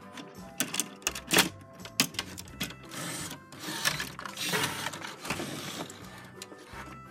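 Plastic toy train-track parts being handled and fitted together: several sharp clicks and knocks in the first two seconds, then a few seconds of rustling, over background music.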